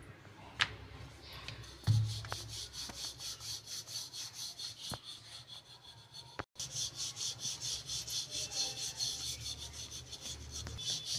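Wooden rolling pin rolling out puri dough on a floured rolling board: a quick, even back-and-forth rubbing, about four strokes a second. There is a sharp knock about two seconds in, and a brief gap a little past halfway.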